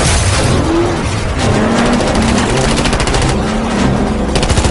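Film car-chase sound: rapid automatic gunfire rattling over running car engines, the shots coming thick and fast from about a second and a half in.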